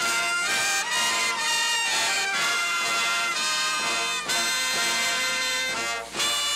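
Marching band's brass section playing a tune as it parades: trumpets, trombones and sousaphones, with a brief drop in sound near the end.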